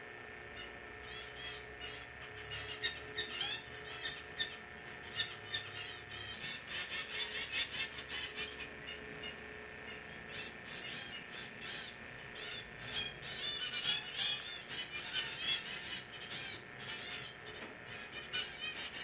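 Many rapid high chirps and twitters, as of small songbirds, come in flurries, busiest about a third of the way in and again about two-thirds in, over a faint steady hum.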